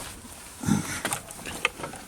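Small clicks and knocks of hands working a plastic clip and parts inside an opened Kenwood Chef mixer's housing, with one duller, louder knock a little under a second in.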